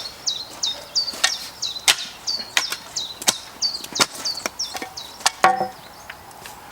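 A small bird repeating a short, high, falling chirp about three times a second, stopping about five seconds in. Sharp clicks and knocks, like stones or tools being handled, come in between.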